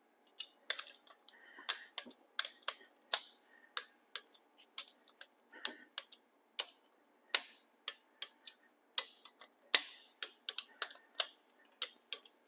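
Click-type torque wrench ratcheting and clicking off as the main bearing cap bolts of a Miata engine block are tightened to the set 40. Sharp clicks come at an uneven pace, every half second to a second, some much louder than others.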